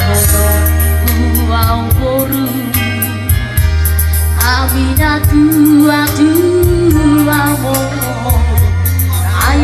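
Loud music with a steady heavy bass line and a melody sung over it.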